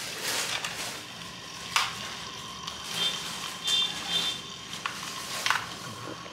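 A Nado metal-rimmed toy spinning top spinning across a ceramic tile floor: a steady hissing whir of its tip on the tile, with a few sharp clicks and a short high-pitched whine that comes and goes three times in the middle.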